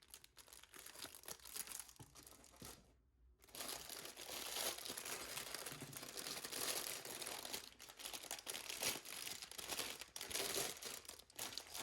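Plastic bags of Lego parts crinkling and rustling as they are handled, with a short lull about three seconds in.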